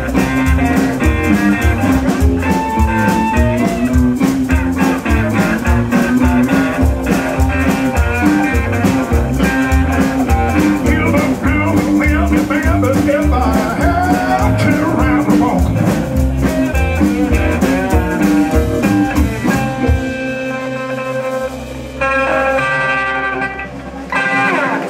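Live blues band with upright bass, drums and electric guitars playing a driving rhythm. About twenty seconds in the beat stops and a final chord rings on to close the song.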